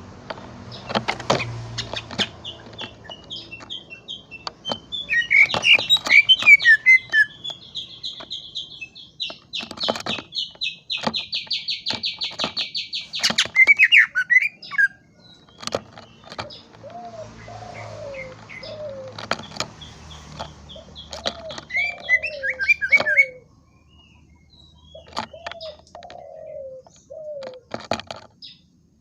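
Cucak ijo (green leafbird) singing a varied, chattering song. It has a long rapid trill in the middle, sharp clicking notes throughout, and lower slurred whistles in the second half.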